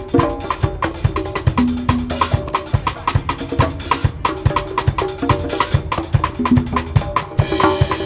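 Drums and percussion played in a fast, steady groove during a warm-up, with dense, evenly spaced strokes throughout.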